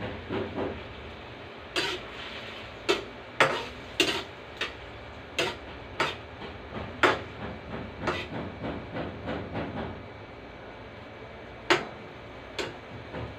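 A metal spatula clinks and scrapes against a wok while stirring food: about a dozen sharp, irregularly spaced knocks over a steady hiss from the pan on the gas burner.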